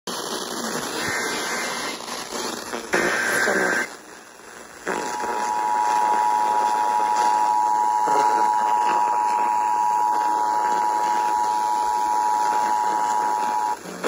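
Emergency Alert System activation playing through a Sangean portable radio's speaker over FM static hiss. Two short buzzy data bursts of the digital alert header are followed, after a brief pause, by the steady two-tone attention signal held for about nine seconds. The signal marks the start of a severe thunderstorm warning.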